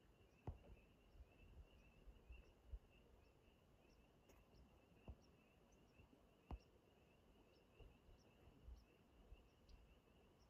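Near silence: a faint, steady high trilling chorus in the distance, with a few faint short high chirps and several soft knocks.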